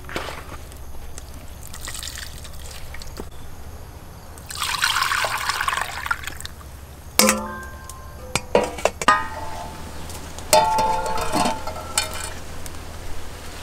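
Coconut milk poured through a fine-mesh metal strainer into a ceramic bowl, splashing for about two seconds. Then come several sharp clinks and knocks of metal kitchenware, some ringing briefly.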